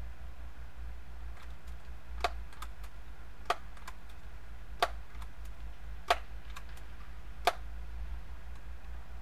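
Daisy PowerLine 901 multi-pump air rifle being pumped: five sharp clacks of the forearm pump lever, evenly spaced about a second and a third apart, with lighter clicks between them.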